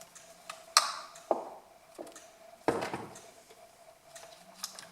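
A few sharp knocks and clatters of a chainsaw body and its parts being handled on a workbench, about four of them in under three seconds, over a faint steady hum.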